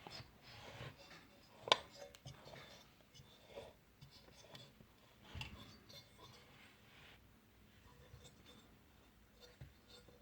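Faint rubbing and light clicks of a partly assembled small lawn mower engine being turned over by hand, the piston rod and crankshaft moving freely with the piston rings left off; one sharper click about two seconds in.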